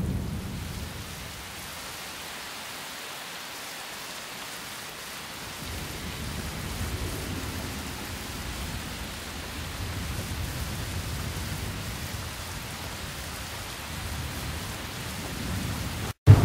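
Steady rain with low thunder rumbling, swelling and fading, a recorded storm effect closing an album track. The sound cuts out for a moment near the end.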